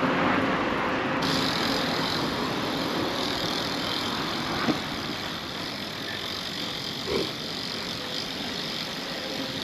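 A car running close by, heard over a steady rush of street and wind noise. Two short, louder sounds stand out, about halfway through and again a couple of seconds later.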